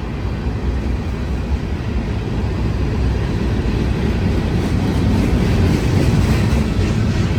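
Union Pacific manifest freight train passing, a steady low rumble that gradually grows louder.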